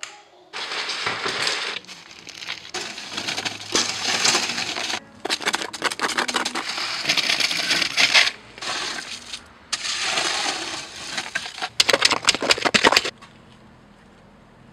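A shovel scraping and scooping wet concrete in a wheelbarrow and dumping it into a plastic tub. The gritty scraping comes in several bouts, with a run of sharp knocks near the end, and it stops about 13 seconds in.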